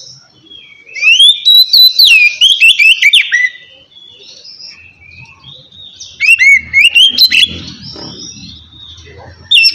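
Oriental magpie-robin singing a loud, clear whistled song: quick phrases of rising and falling notes in two bursts of about two seconds each, with softer twittering between them and a new burst starting at the very end.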